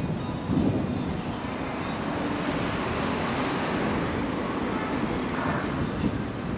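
Street traffic noise: a steady hum of vehicles going by, swelling as one passes through the middle and then easing off.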